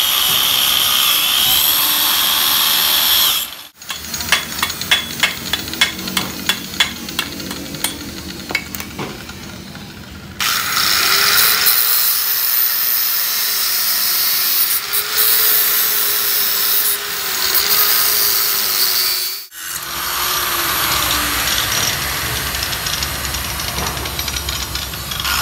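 Power tools working on the steel axle housing in several short stretches. Steady tool noise gives way to a few seconds of sharp, irregular taps, and then steady tool noise with a wavering hum returns.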